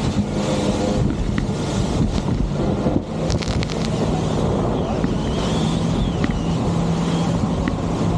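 Motorboat engine running steadily under way, with wind buffeting the microphone and water rushing past the hull. A few short clicks sound about three seconds in.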